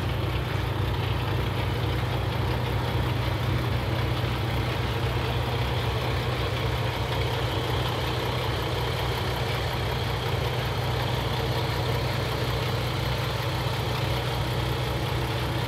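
Paccar MX-13 diesel engine of a Peterbilt 579 day cab idling steadily, a low even rumble.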